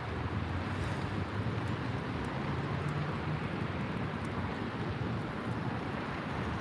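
Steady outdoor rumble of wind and distant traffic, a low even hum with no distinct events.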